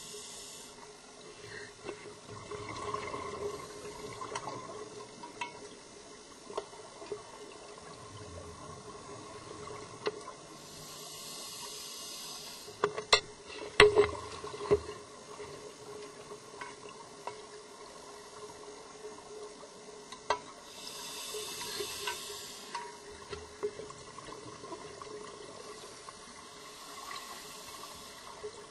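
Underwater sound of a scuba diver's breathing: bursts of exhaust bubbles from the regulator, a second or two long, come roughly every six to ten seconds over a steady low hum. A quick cluster of sharp clicks or knocks about halfway through is the loudest sound.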